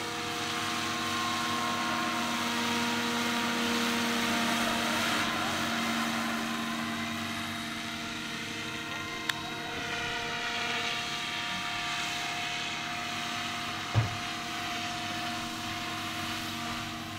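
Radio-controlled scale model of a Bell UH-1N twin Huey (Bell 412) helicopter flying past, its rotors and drive giving a steady whine of several even tones. It swells over the first few seconds, then eases off as the model moves away. There is a sharp click about nine seconds in and a short low thump about fourteen seconds in.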